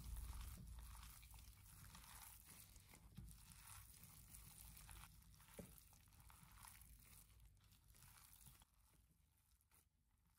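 Faint, irregular wet squishing of chicken mince being kneaded by hand in a glass bowl, with light crinkling of the gloves, growing fainter over the last couple of seconds.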